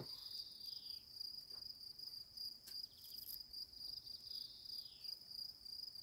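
Faint, steady, high-pitched chirring of insects such as crickets. Two short falling whistles sound over it, one near the start and one about four and a half seconds in, along with a few faint clicks.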